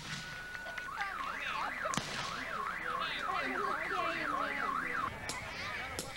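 Car alarm cycling through its patterns: a steady tone, then a fast up-and-down wail about twice a second for about four seconds, changing to another pattern near the end. Black-powder musket shots crack through it about two seconds in and again near the end.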